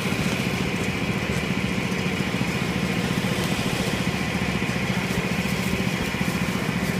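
A small engine idling steadily, with an even low pulsing that does not change.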